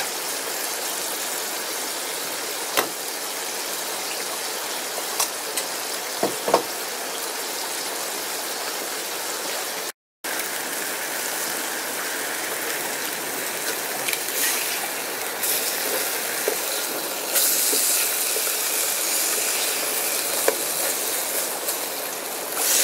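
Ham slices sizzling in a hot Trangia frying pan over a gas canister burner: a steady frying hiss with a few light clicks of handling. There is a brief break about ten seconds in, and the sizzle grows stronger in the second half.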